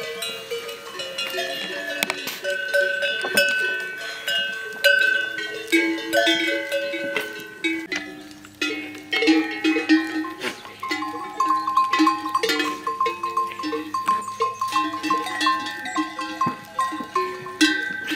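Many goat bells clanking at different pitches as a large herd of goats moves and feeds. From about ten seconds in, one bell rings in a quick, steady run of clinks.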